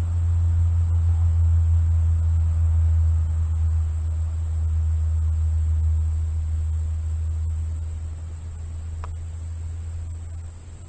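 A steady low hum, easing off over the last few seconds and dropping near the end, with a constant thin high-pitched drone of summer insects over it.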